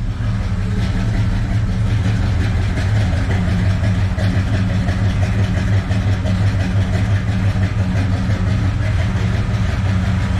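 1970 Chevy pickup's big-block V8 idling steadily, just started. It has light valve-train noise that the owner puts down to a lifter issue or a valve out of adjustment.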